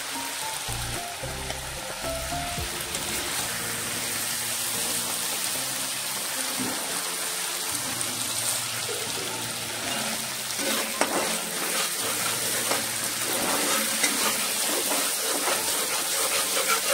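Marinated chicken pieces and masala sizzling in a black iron kadai while a steel spatula stirs them. The spatula scrapes the pan more often in the second half. Soft background music plays underneath.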